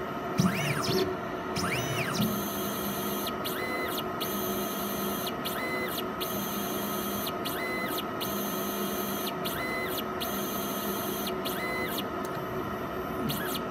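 Automated analyzer's stepper motors driving a pair of pipette tips, over a steady instrument hum. Two rising-and-falling whines sound near the start as the tips move. Then short whirring pulses repeat every second or two as liquid is drawn up and pushed back out of the tips for magnetic-bead separation.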